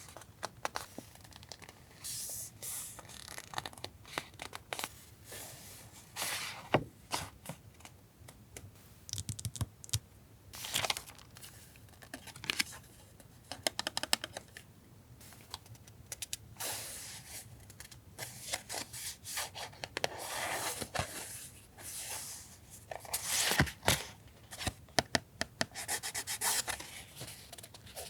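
Paper goods and their packaging handled on a desk: irregular rustling, crinkling and scraping, with frequent small taps and clicks.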